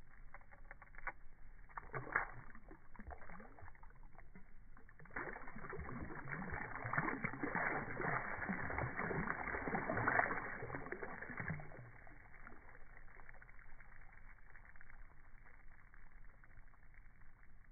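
Shallow water splashing as a released largemouth bass kicks free from a hand and thrashes away. There are a few small splashes about two seconds in, then a longer burst of splashing from about five to eleven seconds in, loudest near the end of that burst.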